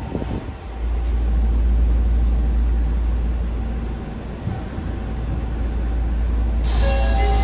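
Nagoya subway N1000-series train running, heard inside the car as a steady low rumble of wheels and running gear as it nears the next station. Near the end an onboard announcement chime starts.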